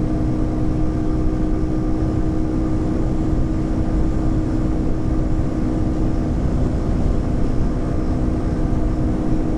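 Motorbike cruising at a steady speed of about 80 km/h: an even drone from the drive with steady tones, over a heavy low rumble of wind buffeting a wired lavalier microphone.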